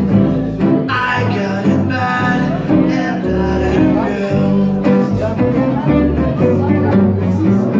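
Live acoustic jazz from two acoustic guitars and a plucked double bass: guitar chords and melody over a line of separate bass notes.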